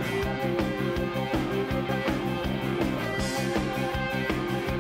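Rock band playing live: electric guitar over drums, with a steady beat.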